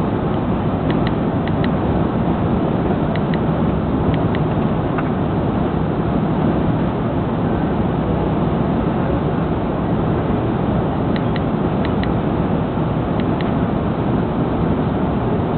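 Airbus A330 cabin noise in flight: a steady, loud rush of engine and airflow noise. A few faint short ticks come in small groups, in the first five seconds and again about two-thirds through.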